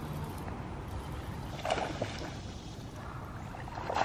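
A few short splashes on the pond surface, about two seconds in and again, loudest, near the end: a bass hitting the skipped chatterbait and being reeled in.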